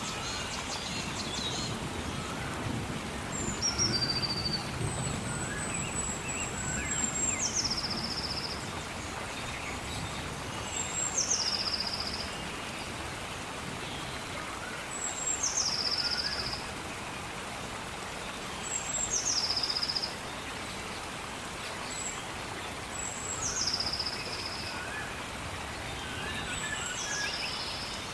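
A bird repeating the same call about every four seconds, each a high note that drops to a lower, briefly held note, over a steady hiss of rain with scattered softer chirps from other birds.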